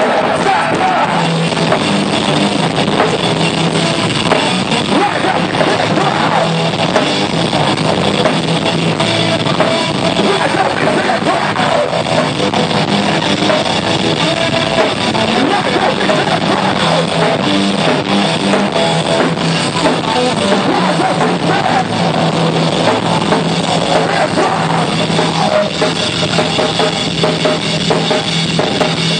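Live rock band playing loudly: a drum kit with bass drum and cymbals driving under electric guitar, with no break.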